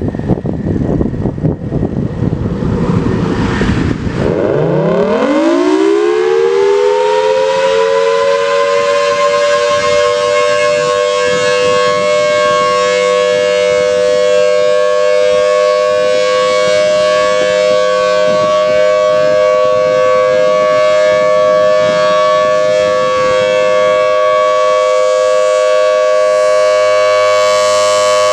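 Federal Signal Thunderbolt 1000T rotating outdoor warning siren winding up. After a rushing noise, its pitch rises steeply about four seconds in and settles into a loud, steady two-tone wail.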